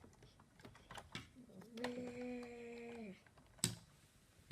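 A voice holds one steady hummed or vocalised note for about a second and a half, with light plastic clicks of Lego pieces being handled around it and one sharp click near the end.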